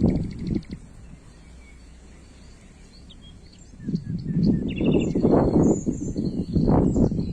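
Wind buffeting the microphone in irregular rumbling gusts, starting about four seconds in after a calmer lull, with small birds chirping faintly in the background.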